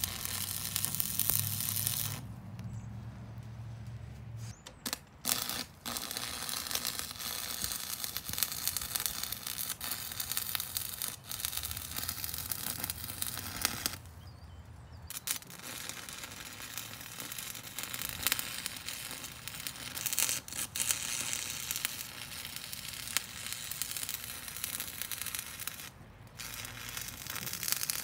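Stick welding with a Campbell Hausfeld 115-volt arc welder on its high setting, burning a 5/64 rod into steel: the arc's steady crackle and sizzle. It breaks off briefly a few times as the arc stops and is struck again.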